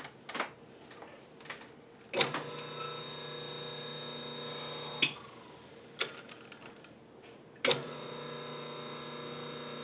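Freshly oiled electric motor of an Atlas horizontal mill, run on its own without being connected to the mill: it is switched on with a click about two seconds in and runs with a steady hum, is switched off about three seconds later, then is switched on again near the end and runs on steadily.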